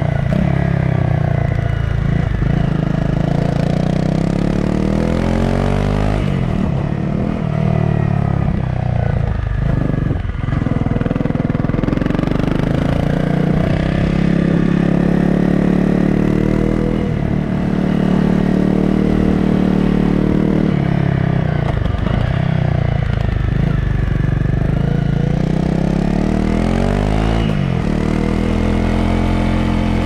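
Honda CRF250 Rally's single-cylinder engine pulling the motorcycle up a winding climb, the revs rising and dropping again every few seconds.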